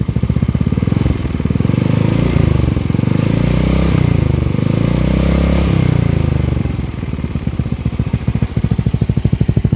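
Yamaha Mio M3 scooter's single-cylinder engine through a Ronin Hanzo aftermarket exhaust set to street mode. It idles, is revved in several rises and falls from about a second in until about seven seconds, then settles back to idle. The note is a very round, deep bass and mellow.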